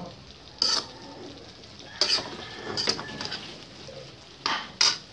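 Kangkong (water spinach) being stirred in a metal pan with a metal spoon, over a steady sizzle from the frying. About five sharp scrapes of the spoon against the pan, two of them close together near the end.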